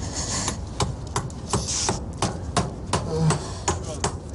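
Hammer blows driving nails, a run of sharp knocks about two or three a second, as a wooden coffin lid is nailed shut at a graveside.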